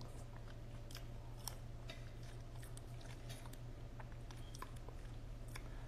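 Quiet room tone with a steady low hum and scattered faint clicks and ticks.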